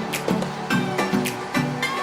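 Background music: an upbeat track with plucked, guitar-like notes over a steady beat.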